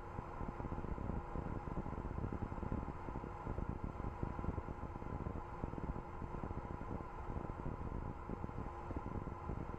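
Steady hiss and low hum of an open mission-control audio loop, with no call on it yet.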